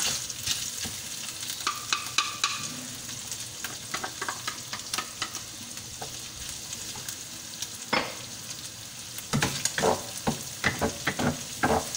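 Ground pork and onion sizzling in oil in a nonstick frying pan, with a spatula scraping and knocking against the pan as it is stirred. The stirring gets quicker and busier near the end.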